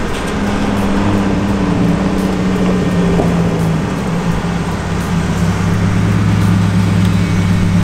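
Car engines idling close by, a steady low hum whose pitch steps down slightly about halfway through, as a car creeps past at walking pace.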